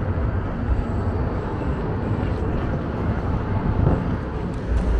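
Steady wind rush and low road rumble on the microphone of a moving bike.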